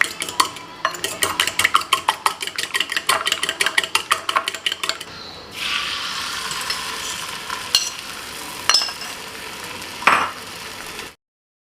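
A metal utensil clinking rapidly against a bowl or pan as food is stirred or beaten, about five strokes a second. About five seconds in the clinking stops and steady sizzling of food frying in a hot pan takes over, with a few sharp clinks, before it cuts off suddenly near the end.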